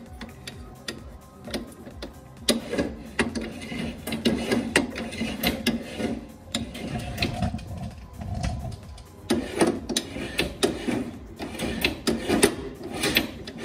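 Metal clicking and clattering as the jet pump's reverse bucket is swung by hand on its pivot, working the reverse cable linkage. It starts as scattered clicks and turns into denser, irregular rattling after about two seconds.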